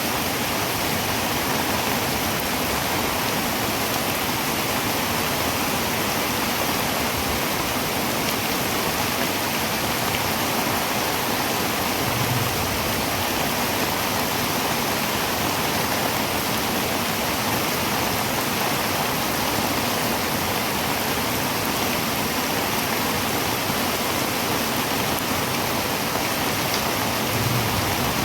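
Heavy rain falling steadily on a tin roof: a dense, even hiss of drops.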